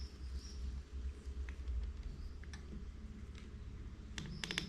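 Faint scattered clicks and ticks of a Torx driver working the small screws on metal adjustable scope rings, with a quick cluster of sharper clicks near the end. A low steady hum runs underneath.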